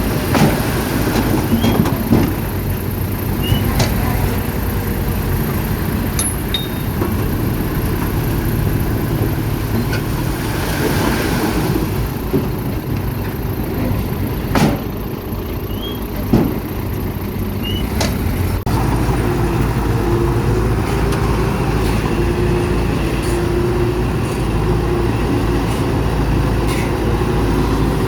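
Bulldozer's diesel engine running steadily under work, with a few sharp metal clanks; about two thirds of the way through the engine note changes and a steady whine comes in.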